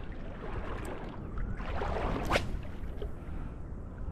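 Steady wind rumble on the microphone over gently lapping water, with one short, sharp sound a little past halfway.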